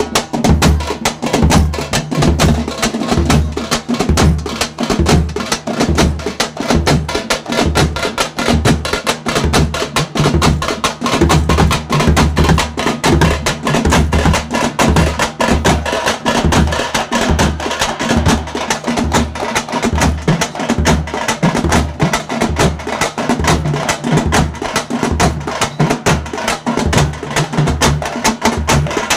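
Percussion-heavy music: fast, dense drumming over a steady deep beat.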